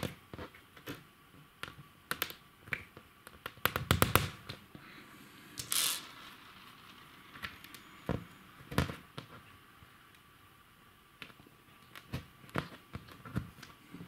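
Scattered knocks and clicks from wooden dowels being pressed and tapped by hand into the holes of a chipboard furniture panel. A quick cluster of taps comes about four seconds in and a short burst of noise just before six seconds, then single knocks further apart.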